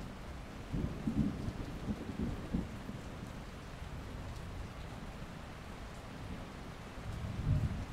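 Steady rain falling, with bursts of low rumbling about a second in and again near the end.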